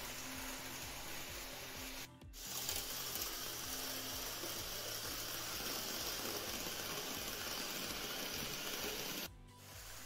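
N-scale model trains running on the layout track: a steady hissing whir of wheels and small motors. The sound drops out briefly twice, about two seconds in and again near the end.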